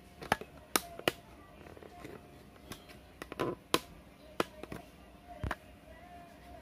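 About a dozen sharp, irregular clicks and taps, a few louder than the rest, over a quiet background.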